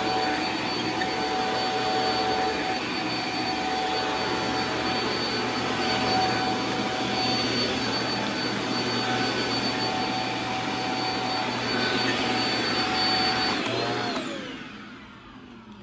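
Shark MultiFlex vacuum running with a steady high motor whine and rushing air, then switched off about 14 seconds in, its motor whine falling as it spins down.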